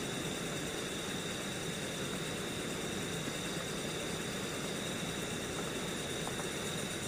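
Stream water running under a bridge: a steady, even rush with no change, and a constant high-pitched tone above it.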